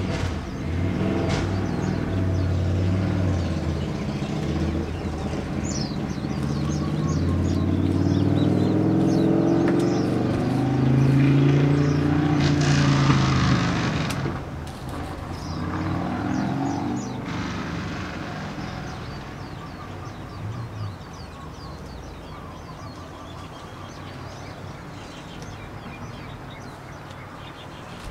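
A motor vehicle's engine running close by, its pitch rising and falling, loudest about twelve seconds in and then fading away. Small birds chirp now and then.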